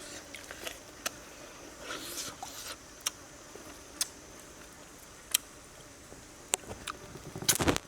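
Occasional sharp taps and clicks, about one a second, over a faint steady background hiss.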